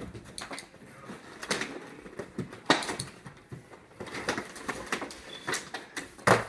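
Cardboard box and plastic packaging being handled as a 10-inch Funko Pop is lifted out: uneven knocks, scrapes and rustles, with a sharp knock near the end as the box tips over.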